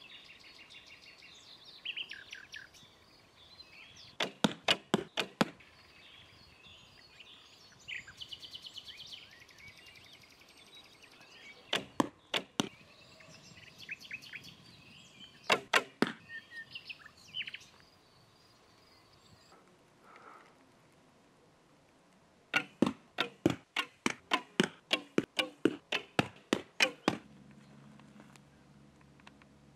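Runs of sharp clicks, several a second, in four bursts, the longest near the end; faint chirping in between during the first two-thirds.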